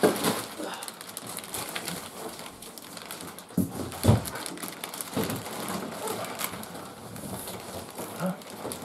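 Clear plastic bag wrapped around a printer rustling and crinkling as the printer is lifted out of its cardboard box, with a few low thuds, the loudest about four seconds in.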